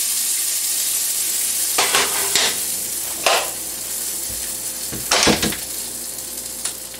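Eggs sizzling and hissing in a shattered Pyrex Flameware glass skillet on an electric stove burner. The hiss fades slowly, broken by a few sharp clinks and knocks about two, three and five seconds in.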